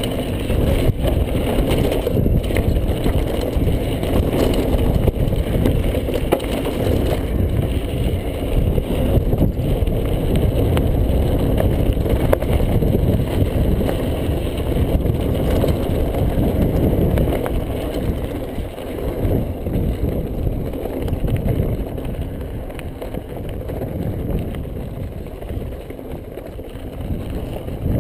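Wind rushing over a chest-mounted GoPro's microphone, with the Yeti 575 mountain bike's tyres and frame rattling over loose gravel and stones on a fast descent. The noise eases off somewhat in the last third.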